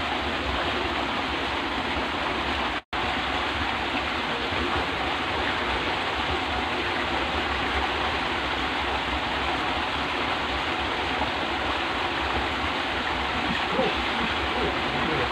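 Water pouring steadily over a small step in a drainage ditch, a constant rushing splash. The sound cuts out for an instant about three seconds in, then resumes unchanged.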